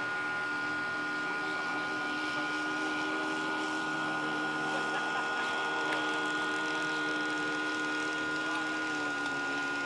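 O.S. .48 four-stroke glow engine of a radio-controlled model airplane running steadily in flight overhead, its pitch sagging slightly near the end as the plane passes. A steady high tone runs alongside.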